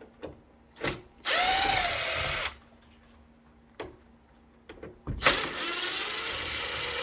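Power drill backing out door hinge screws: two runs of the motor, the first about a second long and the second about two seconds, its whine rising and falling in pitch, with a few short clicks between them.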